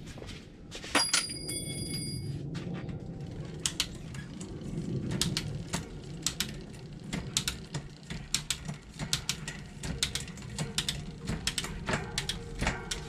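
Bicycle being handled and worked on: irregular small metallic clicks and ticks, with one sharp ringing metal clink about a second in.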